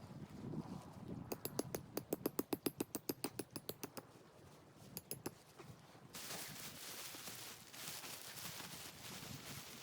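A fast run of sharp slapping taps, about ten a second for nearly three seconds, then two single taps. After that comes a steady crunching that sounds like footsteps in snow.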